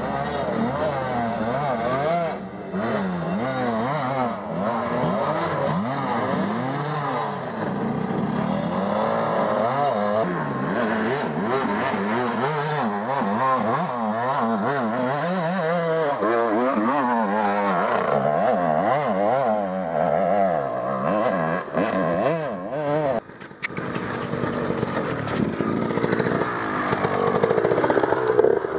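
Enduro dirt-bike engines revving hard as riders climb a steep trail, the revs rising and falling rapidly under the throttle. One bike passes close and loud near the end.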